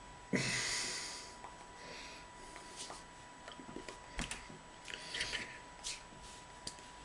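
A man's breathy snorts and puffs of air through nose and mouth, the loudest just after the start, with a few short sharp clicks, over a faint steady high-pitched whine.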